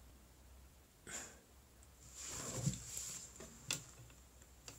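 A man breathing close to the microphone: a short breath about a second in and a longer breath out from about two to three seconds in, with two faint clicks near the end.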